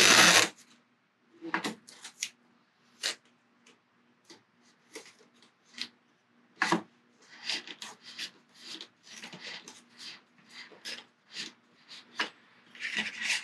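Masking tape being pulled off its roll and wound around a fishing rod blank to build up a tape arbor, heard as a series of short, irregular rasping pulls and rubs, the loudest right at the start.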